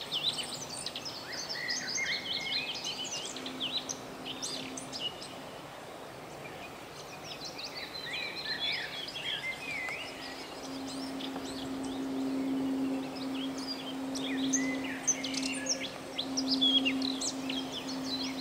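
Several small songbirds singing and chirping at once, a spring chorus of short overlapping trills and calls. A steady low hum runs underneath and grows stronger a little past halfway.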